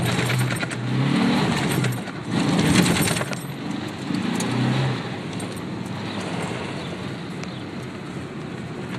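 1993 Ford Ranger pickup's 3.0 L Vulcan V6 running, heard from inside the cab while the truck drives along a dirt track. The engine surges louder several times in the first half, then runs steadier and quieter, with light rattles throughout.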